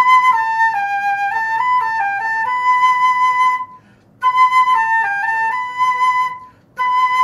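Concert flute played solo: a short phrase that starts on a held note, steps down a few notes and climbs back to hold the first note, played twice with a brief breath between, then the same note held again near the end.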